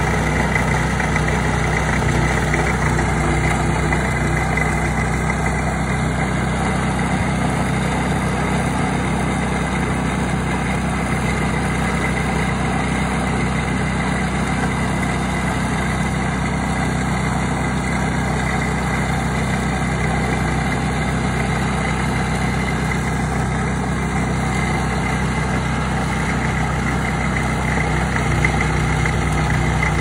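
Walk-behind gas snowblower engine running steadily under load as it throws snow.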